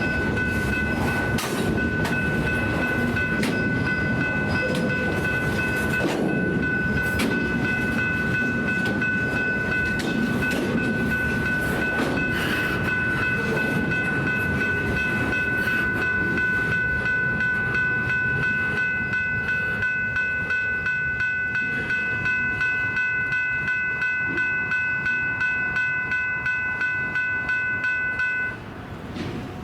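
Freight train rolling past, a steady rumble with the clickety-clack of wheels over rail joints and a high steady whine that cuts off suddenly near the end.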